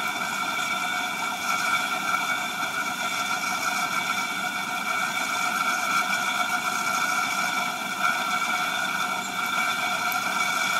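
Home-built Gingery milling machine running steadily with a constant whine from its motor and spindle drive while a drill bit feeds into an aluminium V-pulley.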